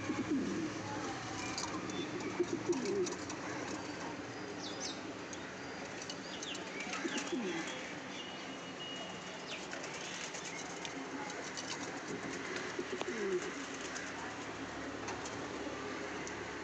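Racing pigeons cooing: repeated low, short rising-and-falling coos from several birds over a steady background hiss, with a few higher chirps.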